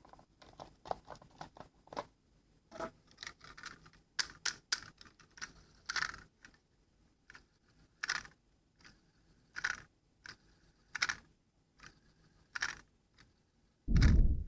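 Small hard objects being handled: a run of light, irregular clicks and taps, then louder single strokes about every one and a half seconds, ending in a heavy low thump.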